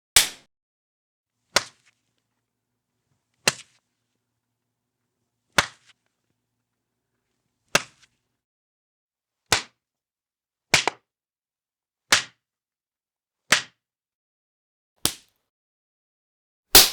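A series of slap sound effects: about eleven separate sharp hand slaps, one every second and a half or so with silence between. Each is a sudden crack with a short fading tail, and one about two-thirds of the way through comes as a quick double.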